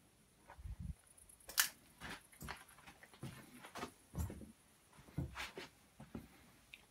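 Irregular knocks, low thumps and rustles from handling as the camera is swung around: about a dozen short, uneven sounds, the sharpest about a second and a half in.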